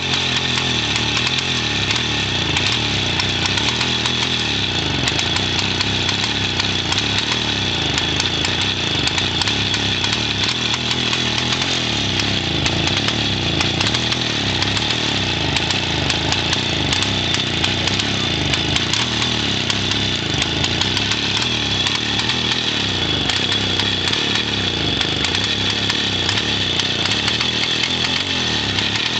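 Motobécane 50V moped's 50 cc two-stroke single-cylinder engine running steadily, its exhaust a gutted stock pipe ending in a Coca-Cola can.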